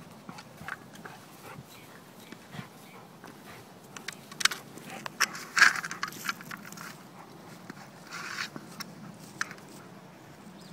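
Rottweiler playing with a toy ball: scattered clicks and knocks, with a flurry of louder knocks about halfway through.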